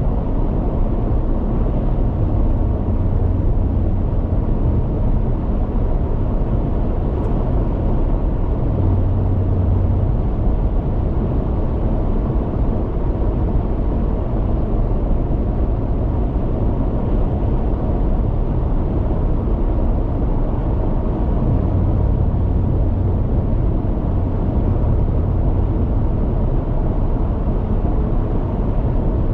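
Steady low rumble of tyre and wind noise heard inside a car's cabin at highway speed, with a low drone that swells and fades now and then.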